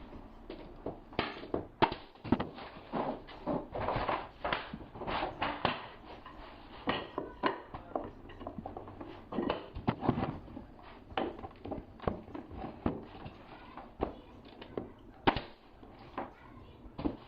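Irregular knocks and taps of hardwood floorboards being fitted and fastened in the last row against the wall. Some knocks are single and sharp, others come in quick runs.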